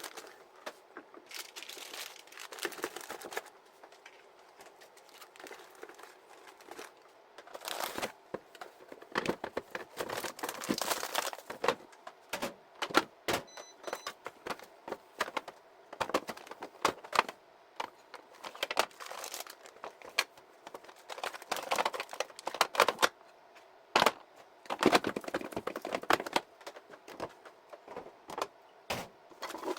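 Plastic packaging crinkling and small hard items clicking and knocking as things are handled, in irregular bursts with short pauses between.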